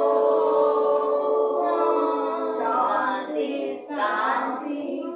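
Devotional Hindu chanting in a woman's voice: one long held note, then a wavering sung phrase from about three seconds in.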